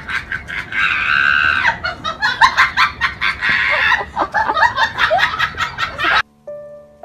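A person laughing in shrill, rapid cackles, with two longer high squealing notes. It cuts off abruptly about six seconds in.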